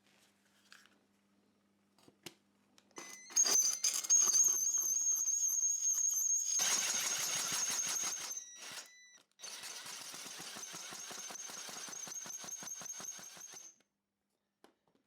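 Power drill spinning an adjustable single-arm tile hole cutter into a wetted ceramic tile: a steady high motor whine over rapid, even scraping of the cutter against the tile. It runs in two stretches, about six seconds and then about four, with a brief stop between.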